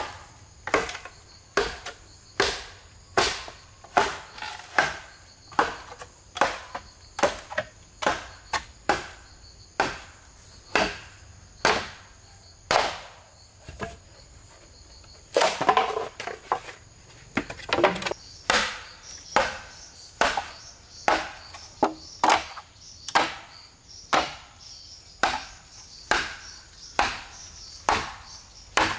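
Machete chopping into a bamboo pole: sharp, evenly spaced strokes about one a second, pausing briefly about halfway through before a quick run of knocks and more strokes.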